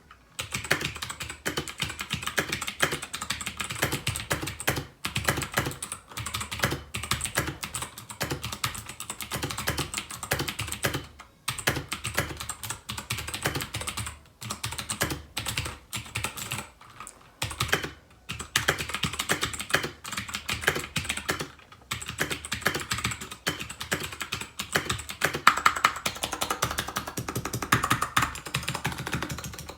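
Fast, continuous typing on a Royal Kludge RK61 mechanical keyboard with clicky blue switches, a dense run of key clicks broken by a few short pauses.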